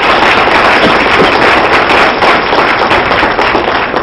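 Audience applauding, a loud steady patter of many hands clapping that eases off near the end.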